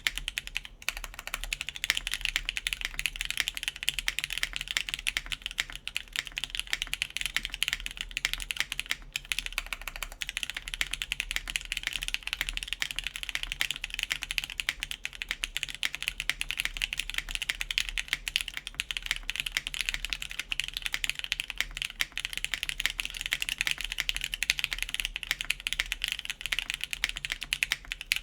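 Continuous fast typing on a RAE Aurum mechanical keyboard with a carbon fiber plate, lubed Gateron Ink switches and GMK keycaps: a dense run of crisp keystroke clicks, with brief pauses about a second in and around nine seconds in.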